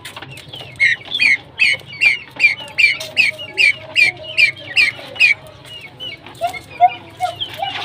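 Pheasants calling: a quick run of about a dozen high calls at about two and a half a second, then softer, lower calls near the end.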